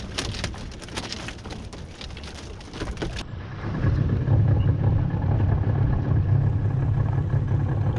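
A fishing boat's outboard engine running steadily, from about four seconds in. Before it comes a quick run of knocks and clicks.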